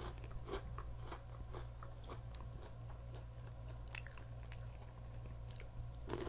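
Mouth chewing and biting crunchy pretzel sticks dipped in chocolate hazelnut spread, a string of small irregular crunches, over a steady low hum.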